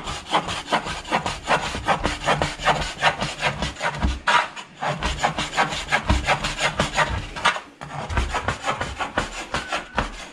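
Heavy chopping knife rapidly chopping roti on a cutting board, about five quick strokes a second, with two short pauses.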